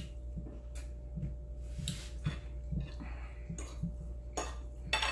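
A metal fork clinking and scraping against a ceramic plate of spaghetti, in several sharp clicks, the loudest near the end, with a plastic cup set down on a wooden table.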